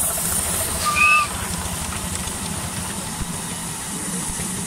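Miniature steam train passing on the next track: a hiss of steam that fades about a second in, over a steady low rumble of the trains running. A short high-pitched tone sounds about a second in.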